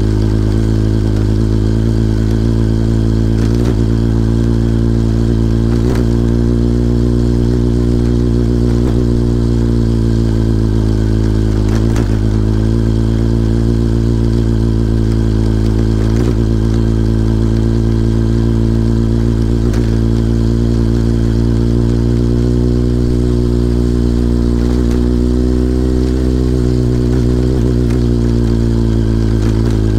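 Kawasaki ZRX1100's inline-four engine running at steady revs with slight rises and falls, under load as the motorcycle climbs a very steep grade slowly. A few short knocks sound now and then.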